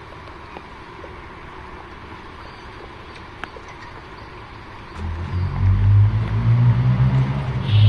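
A motor vehicle's engine running close by. It comes in about five seconds in as a loud, deep, steady drone over quiet outdoor background.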